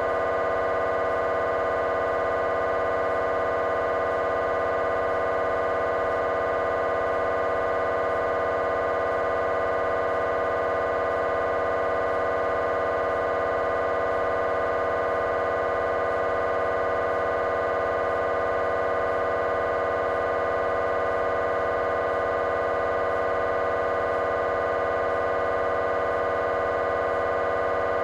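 GE 3 tesla MRI scanner's gradient coils sounding during a coronal T1 fast spin echo (FSE) sequence: a steady electronic buzzing tone with several pitches held together, unchanging throughout.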